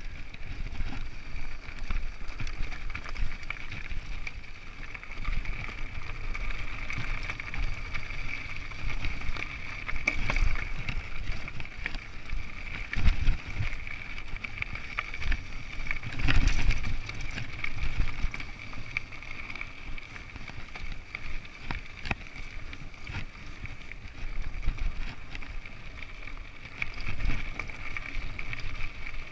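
Mountain bike ridden over rocky dirt singletrack: steady rolling and rattling noise with wind on the microphone, and harder jolts about 13 and 16 seconds in.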